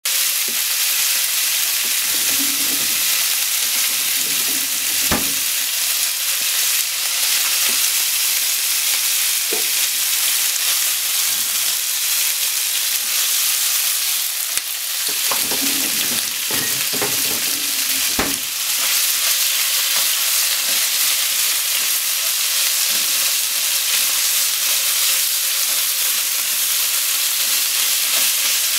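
Sliced pork and green onion sizzling steadily in a hot frying pan as they are stir-fried with wooden chopsticks, which knock against the pan a few times, most about halfway through.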